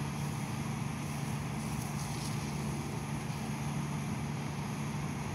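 A steady low hum from a motor running in the background, with no distinct events.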